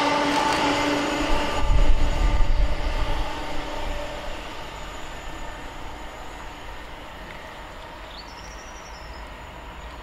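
A Class 730 Aventra electric multiple unit running away at speed, with a steady electric hum over wheel-on-rail noise. About a second and a half in, as the tail passes, a low rumbling rush of air comes through, and then the train's sound fades steadily into the distance. A brief high chirp sounds near the end.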